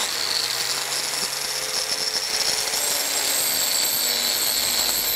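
Electric angle grinder fitted with a stone-grinding cup wheel, running steadily with a high whine.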